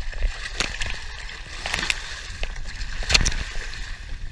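Water splashing and sloshing at the side of a boat in a few sharp bursts, the biggest about three seconds in, over a low rumble of wind on the microphone.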